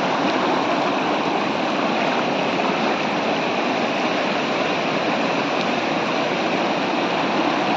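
Muddy floodwater swollen by heavy rain, rushing steadily over the ground.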